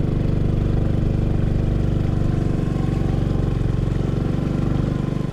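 Small motorcycle engine running at a steady pace while riding, one even engine note throughout.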